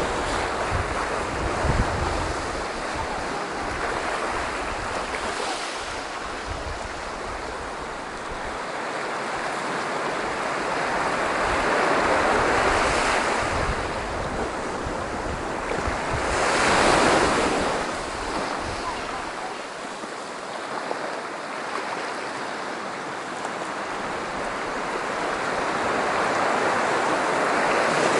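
Surf breaking and washing onto a beach in slow swells, the biggest wave a little past halfway through, with wind rumbling on the microphone.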